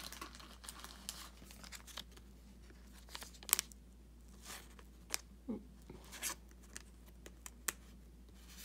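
Thin clear plastic card sleeve crinkling and rustling as a trading card is slid into it. The rustles come in short scattered bursts, the sharpest about three and a half seconds in.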